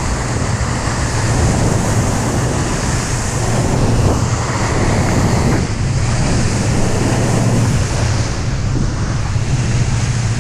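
Wind buffeting the microphone and water rushing past the hull of a fishing boat running at speed, over a steady low engine drone.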